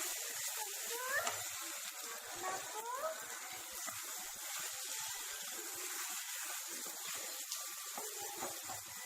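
Boiled mutton pieces frying in oil and masala in a pan, a steady sizzling hiss.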